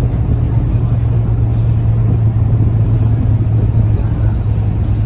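Scania K230UB city bus's rear-mounted diesel engine running with a steady low drone at a constant pace, heard from inside the passenger cabin along with road rumble.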